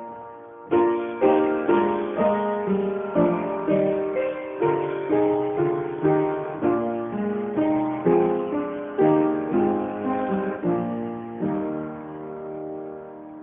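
Instrumental music: quickly decaying notes and chords, struck or plucked about twice a second, giving way near the end to one last chord that fades away.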